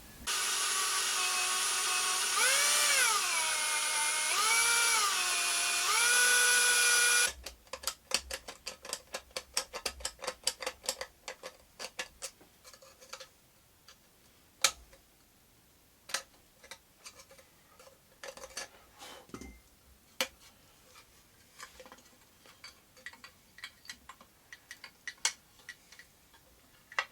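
A small power drill runs for about seven seconds, its pitch rising and falling three times, then stops abruptly. Scattered sharp clicks and light taps follow.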